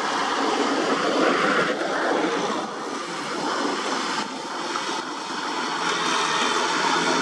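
Kubota M6040 SU tractor's diesel engine working under load as it ploughs through deep, wet paddy mud. It is heard as a steady, rushing noise.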